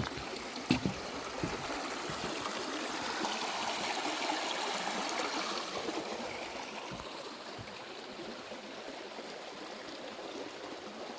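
A small creek flowing steadily over rocks, swelling somewhat in the middle and easing off later, with a couple of soft knocks about a second in.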